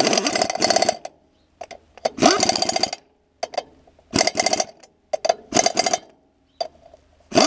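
Pneumatic impact wrench hammering in a series of short bursts, each under a second, as it runs down bolts on the disc mower's cutterbar modules.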